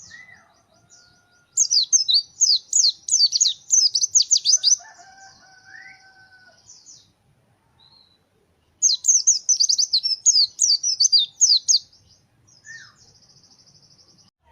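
White-eye (pleci) singing in two bursts of rapid, high, downward-slurred chirps, each trailing off into a buzzy trill, with a few fainter, lower whistled notes between them.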